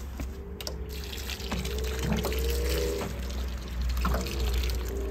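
Water pouring from a plastic watering can onto loose soil around a rose, a steady splashing trickle that grows louder about two seconds in.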